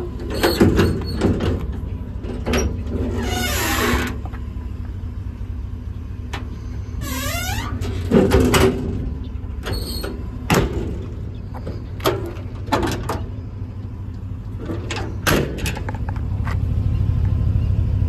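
Doors or compartment doors clunking and latching open and shut several times over a steady low engine rumble, with a short squealing sweep about seven seconds in.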